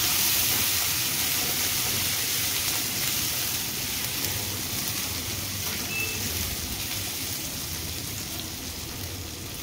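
Green chillies, garlic and grated ginger sizzling in hot oil with cumin seeds in a steel pan, a steady hiss that slowly eases off.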